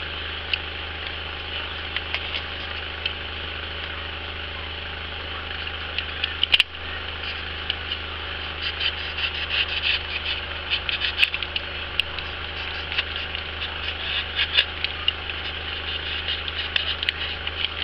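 Utility knife blade cutting and shaving the edge of a polystyrene foam ball: a run of scratchy squeaks and crackles, sparse at first and thicker from about eight seconds in, with one sharp click partway through. A steady low electrical hum runs beneath.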